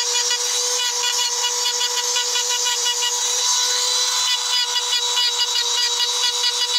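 Hand-held electric rotary engraving tool running at a constant high speed, a steady motor whine with a gritty hiss as its bit grinds lines into a dark stone slab.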